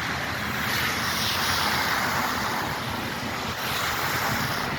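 Road traffic passing on a street of wet, slushy snow: a steady rushing noise over a low rumble, a little louder about a second in.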